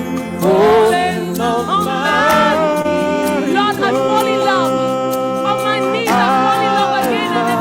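Live worship music: voices singing long, wavering held notes over a steady sustained accompaniment.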